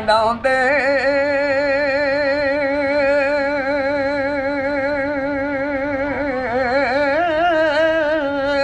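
An elderly man singing a Punjabi Sufi verse unaccompanied, holding one long note with a wavering vibrato on the word "vandaunde" and stepping slightly higher about seven seconds in.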